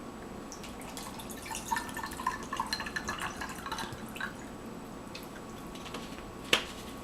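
Water being poured into a cup of ice, trickling and dripping in short pitched plinks for a few seconds, followed by a single sharp knock near the end.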